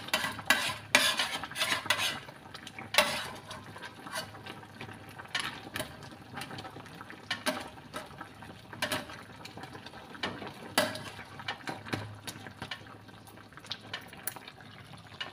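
Metal ladle stirring crabs in coconut milk in a stainless steel pot, clinking and scraping against the pot's sides. The clinks come thick and fast for the first few seconds, then more sparsely.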